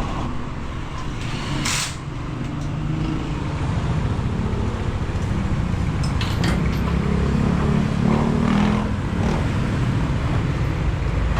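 Motor vehicle engines running steadily in street traffic, a low rumble throughout, with a short hiss about two seconds in.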